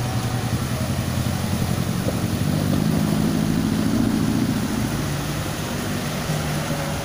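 A minivan and then a pickup truck driving slowly through deep flood water. Their engines hum, swelling about three seconds in, over a steady wash of moving water.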